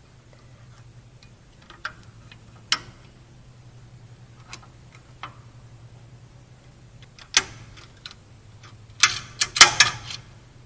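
Metal parts of a rear drum-in-hat parking-brake assembly being worked by hand: scattered sharp clicks as the shoes, springs and adjuster are fitted, then a quick cluster of louder clanks near the end as the top of the shoes goes on. A steady low hum runs underneath.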